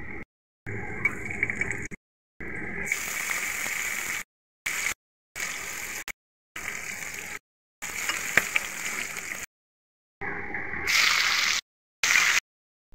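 Cumin seeds, garlic, green chillies and then sliced onion sizzling in hot mustard oil in a kadai. The sound comes in short clips that cut off abruptly between stretches of silence, with a few sharp clicks.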